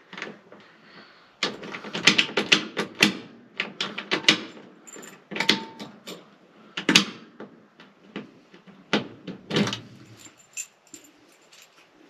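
A key ring jangling and the key clicking as it is turned back and forth through the positions of a newly fitted ignition lock cylinder in a 1962 Ford F-100, then pulled out. Irregular clicks and jingles, densest in the first few seconds, die away about ten seconds in. The engine does not crank.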